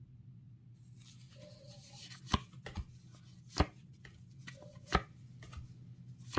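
Sharp taps of trading cards being handled and set down on a hard tabletop: three loud, evenly spaced taps about a second and a quarter apart, with fainter clicks between them, over a steady low hum.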